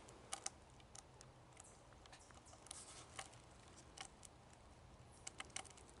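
Near silence broken by faint, irregular small clicks and crackles, a few of them bunched together about five seconds in.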